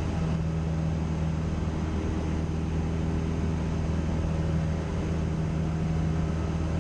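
Cessna 172's piston engine and propeller droning steadily in cruise, heard inside the cabin, with an even low hum that does not change.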